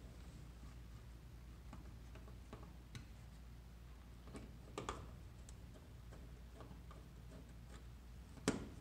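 Faint, scattered clicks and ticks of a hand screwdriver working on a plastic thermostat base plate and its wire terminals, with one sharper click near the end.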